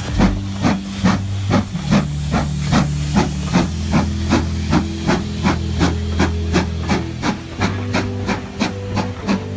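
GWR Manor class two-cylinder 4-6-0 steam locomotive pulling away with its train, its exhaust beating in an even rhythm of about two to three chuffs a second.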